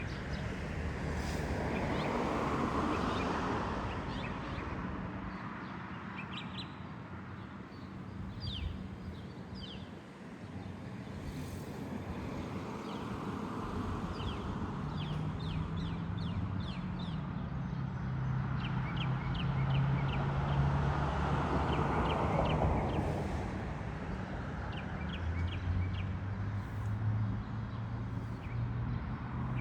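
Outdoor ambience of birds calling in short, quick chirps, over a low hum and two slow swells of rushing noise.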